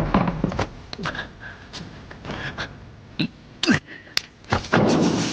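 Kung-fu fight sound effects: a run of sharp hits and whooshes, with short grunts and gasps from the fighters.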